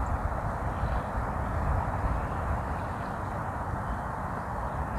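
Strong gusty wind blowing across the microphone: a steady low rumble that swells and dips with the gusts.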